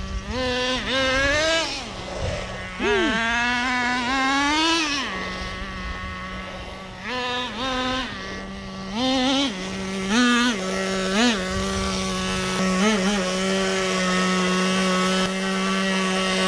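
Nitro RC truck's small glow-fuel engine idling steadily, with repeated short throttle blips that rev it up and let it drop back to idle; one longer rev comes a few seconds in.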